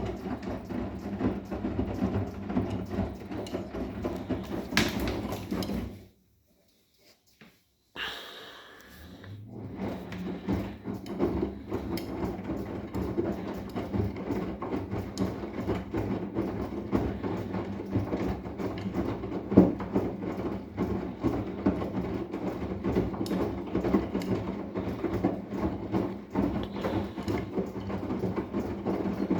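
Arçelik 10121 washing machine on a 60 °C cotton wash, its drum tumbling the load with a steady motor hum and continual small rattles and clicks. The sound cuts out completely for about two seconds partway through, then resumes.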